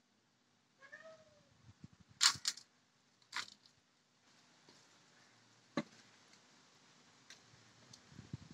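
Sharp knocks of a glass against a metal pot as rice flour is tipped into it, three of them about two, three and a half and six seconds in, with a soft hiss of flour running between. A short animal cry, like a cat's meow, comes about a second in.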